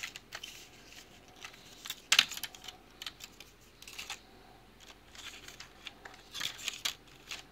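Foil blister packs of tablets crinkling and clicking as they are handled and laid down on a computer keyboard, in scattered short bursts, loudest about two seconds in and again near the end.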